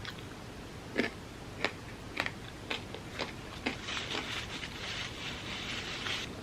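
Close-miked eating: about six crisp crunchy chewing clicks, roughly half a second apart, followed about four seconds in by a steady hiss-like noise lasting about two seconds.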